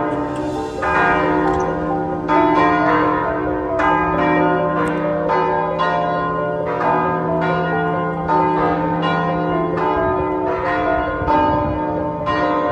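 Background music of bell-like chimes struck in a steady rhythm over a held low note.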